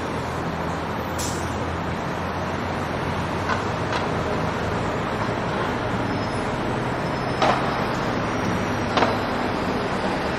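Steady road traffic noise, a continuous rumble and hiss. Two short sharp knocks come late on, about a second and a half apart.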